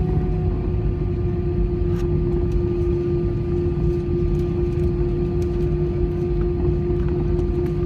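Airbus A320 jet engines running steadily: a constant droning tone over a low rumble.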